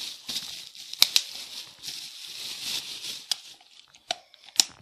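Plastic bubble-wrap packaging crinkling and rustling as a headset is pulled out of it. It dies down after about three seconds, with a few sharp clicks, the loudest about a second in and others near the end.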